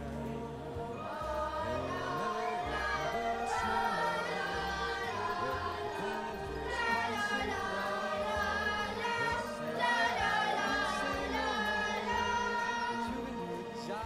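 Children's choir singing a song together over instrumental accompaniment with a low bass line.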